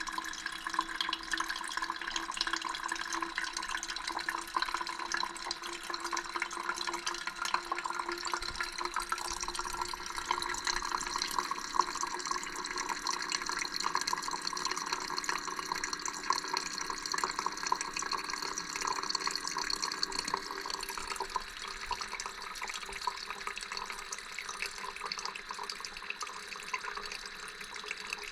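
Gevi automatic pour-over coffee machine running its water pump test: room-temperature water pumped through and splashing and trickling steadily into the carafe, over the steady hum of the pump. The lower part of the hum drops away about two-thirds of the way through.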